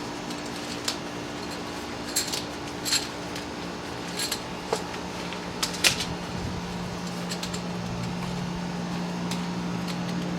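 Scattered light clicks and clinks of camping gear being handled, the sharpest about two, three and six seconds in, over a steady low hum.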